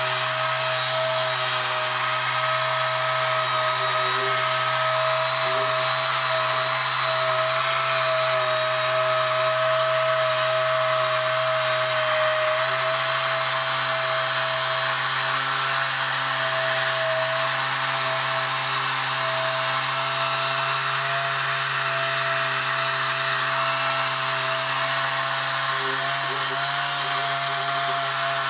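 Pneumatic (air-driven) rotary polisher running continuously, its pad scrubbing a wet metal panel: a steady high whine over a strong hiss.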